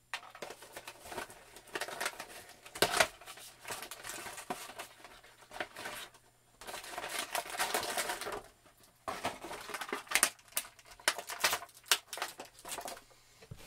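Plastic toy packaging crinkling and rustling as an action figure and its accessories are unpacked from the box, with many sharp crackles and clicks. About seven seconds in there is a longer stretch of steady crinkling.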